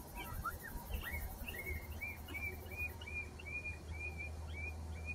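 Faint high chirping calls, irregular at first, then from about a second and a half in a steady series of short arched chirps about two a second, over a low steady hum.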